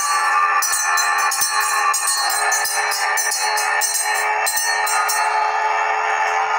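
Droning music with several held tones, joined about half a second in by irregular jingling shakes that stop about five seconds in.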